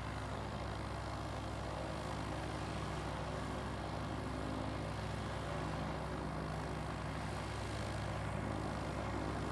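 Quadcopter camera drone's motors and propellers running with a steady, even hum.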